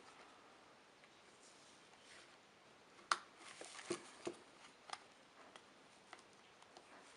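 Faint plastic clicks from handling a small, cheap infrared remote control while its battery compartment is opened and checked: one sharper click about three seconds in, then several lighter clicks and ticks.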